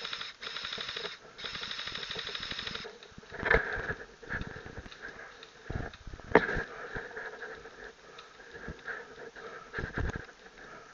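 Airsoft gun firing several rapid full-auto bursts in quick succession during the first three seconds. Afterwards come a few sharp knocks, the loudest about six and a half seconds in, and rustling in dry leaves.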